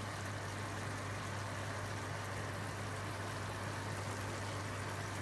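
Steady low electrical hum with an even hiss over it, unchanging throughout.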